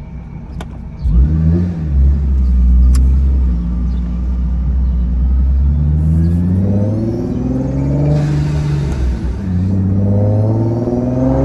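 Supercharged Nissan 370Z's VQ37VHR V6 with a Vortech V3si supercharger and Motordyne Shockwave exhaust: the engine note jumps up about a second in and holds a steady low drone, then rises in pitch under acceleration from about six seconds, drops briefly near nine seconds and rises again.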